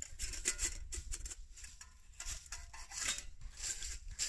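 Stainless steel nesting cook pots and a cup being fitted together and handled, giving short metal scrapes, rattles and clinks.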